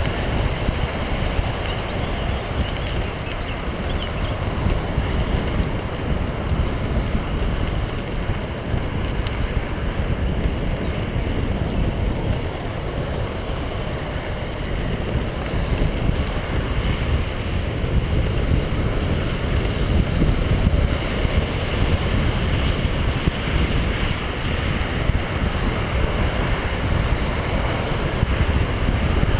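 Steady rumble of tyres rolling fast over a gravel path, with wind buffeting the microphone.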